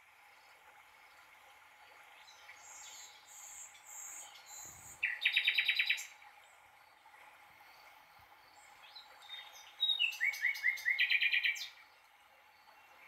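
A songbird singing: a burst of fast trilled notes about five seconds in and a longer one around ten seconds in, with fainter high whistled notes between.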